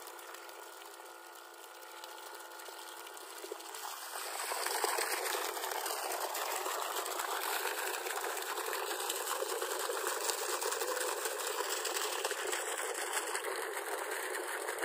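Water gushing from the outlet pipe of a newly installed submersible borewell pump, the flow getting louder about four seconds in and then running steadily.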